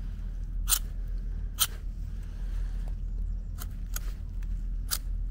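Opinel No. 8 folding knife being handled: five sharp, irregularly spaced clicks over a steady low rumble.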